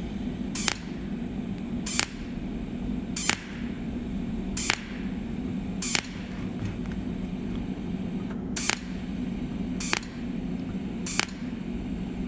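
Cold welding machine firing pulsed spot welds along a metal seam with no filler wire: a sharp snap with each pulse, a little over a second apart, over a steady low hum.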